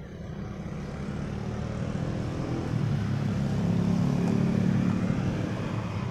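A passing motor vehicle's engine, a steady low drone that grows louder to a peak about four to five seconds in and then fades.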